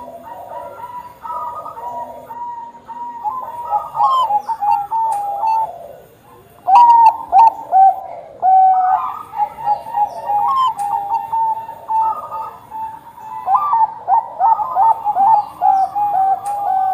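Bangkok-strain zebra dove cooing its song in quick runs of short, stepped notes. There is a pause about six seconds in, and the song resumes loudly a second later.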